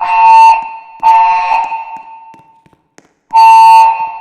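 A Pyrotronics MXL fire alarm system sounds its temporal-three evacuation tone: loud half-second beeps in groups of three. The last two beeps of one group are heard, then a pause, then the first beep of the next group near the end.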